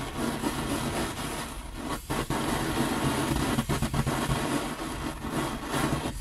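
Hand-held gas torch flame hissing steadily as it heats a coin to anneal (soften) the metal, with a few brief dips in the noise.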